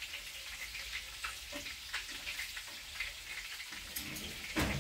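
Meat-and-cabbage cutlets frying in oil in a frying pan: a steady sizzling hiss with scattered small crackles. A single knock sounds near the end.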